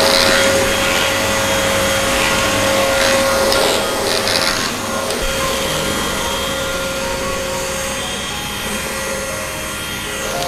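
Handheld bed-and-mattress vacuum cleaner running steadily with a constant motor whine as it is moved over a mattress.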